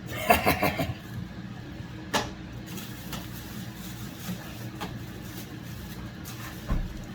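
Handling noises from unpacking a countertop ice maker: a sharp click about two seconds in, another around five seconds, and a low thump near the end, over a steady low hum.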